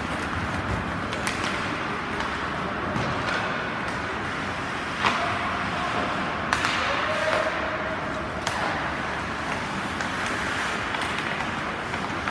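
Ice hockey play in an indoor rink: a steady hiss of skates and rink noise, broken by a few sharp cracks of sticks and puck, the loudest about five, six and a half and eight and a half seconds in.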